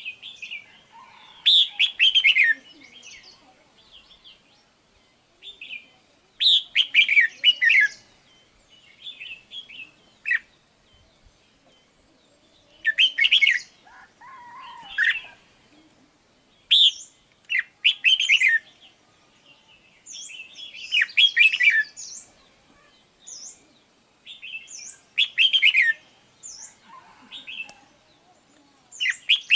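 Red-whiskered bulbul song: bursts of bright, quick chirping phrases repeated every few seconds, with short thin high notes in between.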